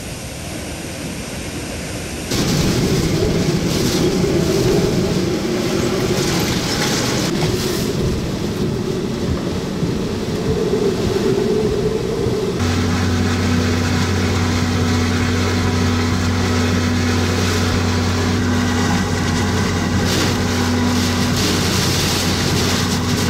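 Hurricane-force wind and heavy rain blowing across the microphone as a loud, continuous rush, with a wavering howl through the first half. The sound changes abruptly a couple of seconds in and again about halfway, and from then on a steady low hum runs under the wind and rain.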